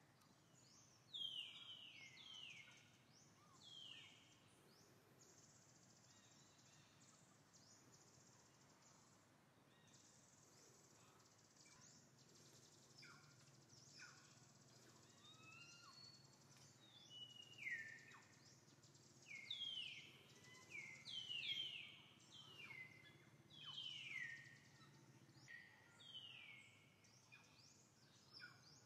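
Short high chirping calls, each sliding down in pitch, coming in runs of several near the start and again through the second half, over a faint steady low hum.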